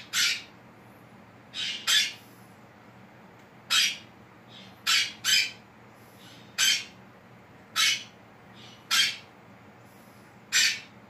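Quaker parrot (monk parakeet) giving short, loud squawks about once a second, some in quick pairs.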